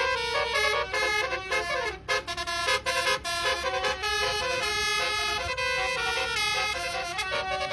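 Bus telolet horn, a Basuri multi-tone air horn, playing a quick melody: several horn tones sound together and step up and down in pitch every fraction of a second.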